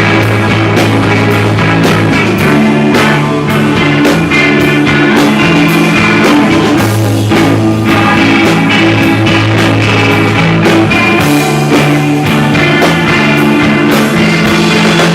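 A rock band playing live, loud: electric guitar and bass holding sustained notes over a drum kit keeping a steady beat.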